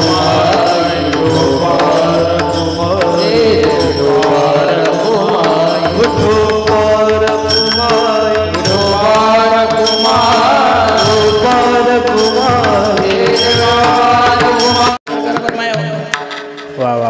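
Kirtan devotional singing of a chant, with tabla-style drumming and steady instrumental accompaniment. It cuts out for an instant about fifteen seconds in and comes back quieter.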